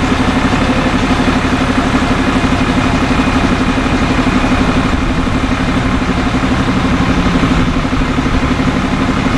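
Diesel engine of an Iveco Magirus fire engine idling steadily at close range.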